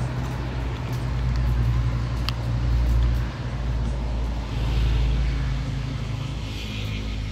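A steady low engine rumble, with a single light click a little over two seconds in.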